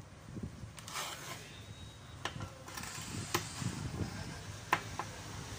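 Screwdriver turning out screws from an inverter air conditioner's outdoor-unit circuit board and heat sink: metal scraping and rubbing with a few sharp clicks.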